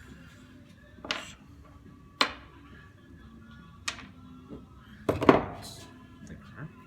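Tools and metal pump parts knocked and set down on a workbench: a handful of separate sharp clanks, the loudest about five seconds in with a short ring.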